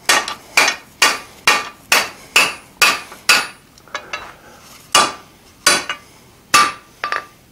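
Blacksmith's hammer striking a red-hot iron bar on an anvil, upsetting and squaring the outside corner of a 90-degree bend. Sharp blows with a brief ring, about two a second for three and a half seconds, then a pause and four more spaced blows.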